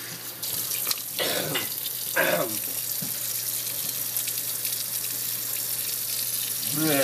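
Tap water running steadily into a kitchen sink. A short voice sound breaks in twice, about one and two seconds in.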